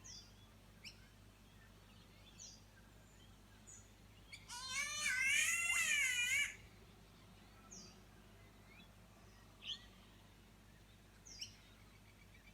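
Wild birds calling. Short sharp falling chirps repeat every second or two, and about halfway through comes one loud, harsh, wavering call lasting about two seconds.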